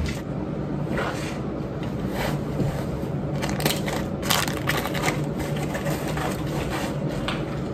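A fabric tote bag being packed and handled: irregular rustling, crinkling and scraping as things are pushed into it and the cloth is worked.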